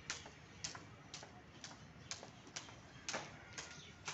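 Plastic-beaded skipping rope clacking on a tiled floor at each turn, a sharp click about twice a second.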